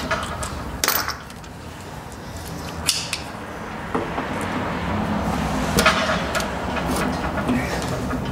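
Hand tools knocking and clanking against the metal parts of a scrapped gas water heater, a few separate knocks a second or two apart, while a stuck part is worked loose.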